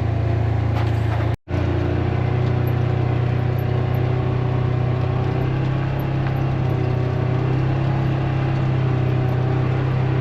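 Vehicle engine running with a steady low drone while driving, briefly cut off about a second and a half in, then carrying on unchanged.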